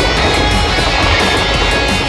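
Background music over the steady rumble of a passing container freight train.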